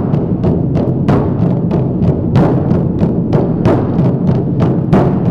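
A large hide-headed drum struck gently by about ten people at once with felt-headed mallets. It makes a steady deep drone made of many overlapping soft strokes.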